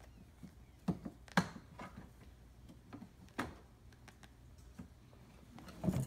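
A few sharp taps on the plastic body of a toddler's ride-on toy car, about four irregularly spaced, as a child's hands pat and knock against its door.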